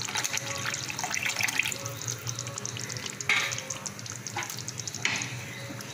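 Tamarind water poured from a steel vessel into a hot, simmering kuzhambu in an aluminium kadai, splashing and crackling as it hits the oily curry, then softer bubbling with two short sharp knocks about three and five seconds in.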